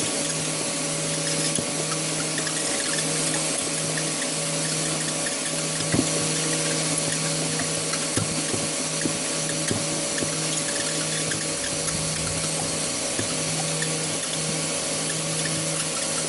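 Homemade box shredder's power-tool motor running steadily with a constant whine while its spinning blades grind a hollow plastic toy apple, with scattered knocks as the toy bounces on the blades; the sharpest knock comes about six seconds in.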